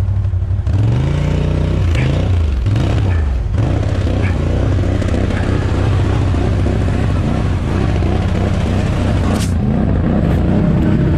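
ATV engine revving up and down a few times over the first few seconds as the quad backs up, then running steadily. A short sharp noise sounds about nine seconds in.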